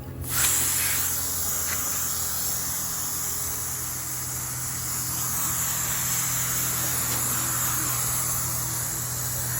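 Garden hose spraying a steady stream of water over a boat hull, rinsing off wet-sanding grit; the spray comes on suddenly just after the start.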